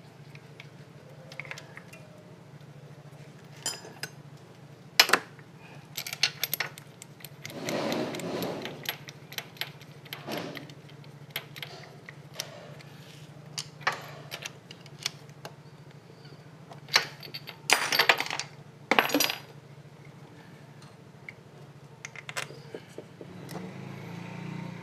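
Metal hand tools and parts clinking and knocking at irregular intervals during work on a scooter engine, with a few louder knocks and a short scraping rattle. A faint low steady hum runs underneath.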